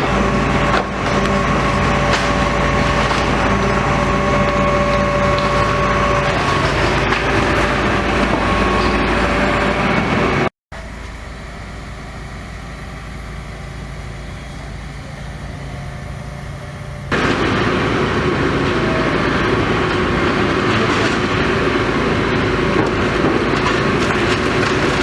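Demolition machine's engine running steadily under work, with high squealing tones and occasional knocks. The noise drops suddenly to a quieter level about ten seconds in and comes back loud about seventeen seconds in.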